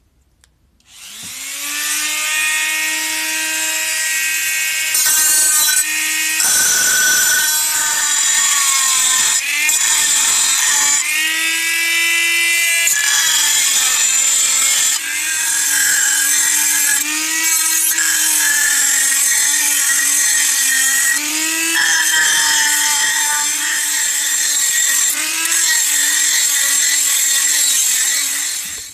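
Handheld rotary tool with a pink grinding stone, spinning up and grinding the metal of a jam jar lid. Its high whine wavers and dips as the stone bears on the metal, over a steady grinding hiss. It stops just before the end.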